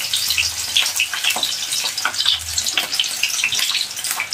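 Thin tuber slices frying in hot oil in a small wok, making a steady sizzle with dense, irregular crackling pops.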